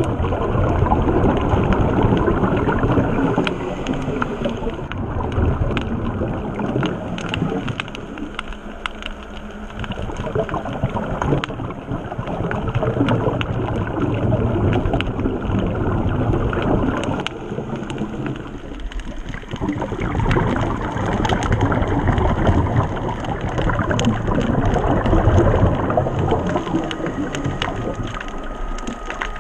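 Underwater sound picked up by a submerged camera: a muffled, continuous rushing of water that swells and dips, with many small crackling clicks scattered through it.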